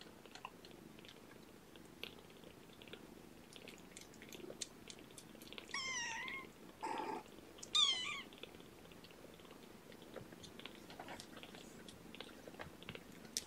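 A two-and-a-half-week-old kitten mewing twice, high and wavering, about six and eight seconds in, with a short rough sound between the two mews. Faint soft clicks otherwise.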